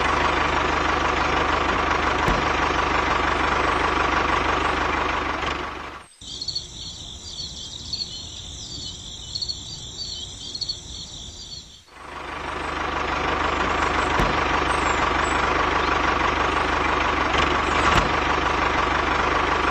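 Tractor engine running steadily. About six seconds in it cuts out and birds chirp for about six seconds, then the engine runs again to the end.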